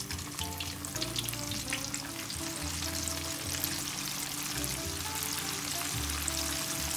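Flour-coated sheepshead fish pieces frying in a deep pot of oil on high heat: a dense crackle and sizzle of bubbling oil, with sharp pops thickest in the first couple of seconds as the last piece goes in. Background music with a steady bass line plays underneath.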